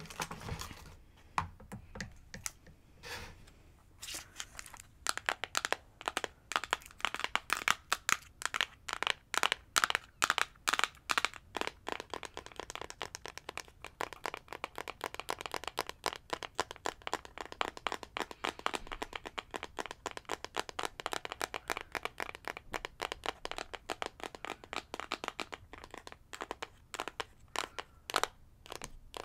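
Fingernails tapping rapidly on an eyeshadow palette held close to the microphone: a few scattered taps at first, then a fast, dense run of taps from about five seconds in, thinning out near the end.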